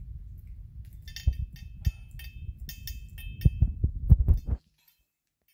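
Cat eating wet food from a stainless steel bowl up close, chewing and lapping with low rhythmic thumps. From about a second in there are sharp clinks, which fit the metal tags on its collar knocking against the bowl. It all cuts off suddenly about four and a half seconds in.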